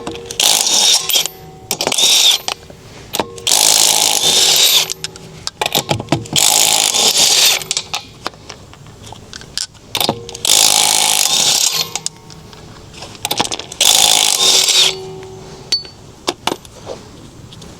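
Cordless impact wrench hammering in about six or seven bursts of roughly a second each, with clicks and clanks in between: loosening the wheel's lug nuts.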